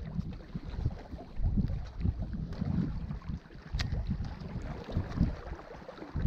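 Wind buffeting the microphone in uneven gusts, with a single sharp click a little under four seconds in.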